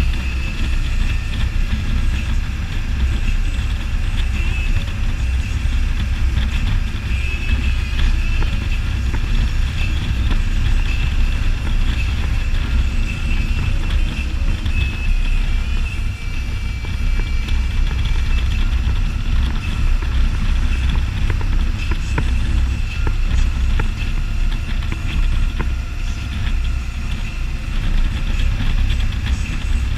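Can-Am Spyder ST Limited three-wheeled motorcycle under way: a steady engine drone with road and wind noise.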